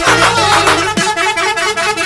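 Electronic dance music with booming bass hits, overlaid by a telolet bus horn playing a quick stepped multi-note tune.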